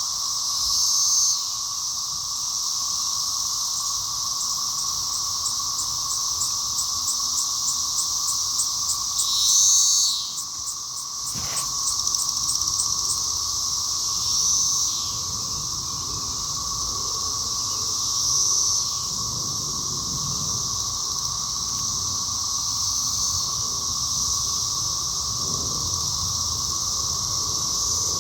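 Cicadas calling: a steady, high-pitched buzz that swells louder for a moment a few times, about a second in, near ten seconds, and again around 14 and 18 seconds. A rapid ticking runs over it from about 6 to 13 seconds.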